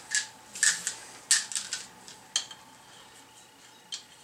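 Metal tools and parts clinking and clattering as they are picked up and handled, about five sharp separate clinks, the loudest about a second and a half in.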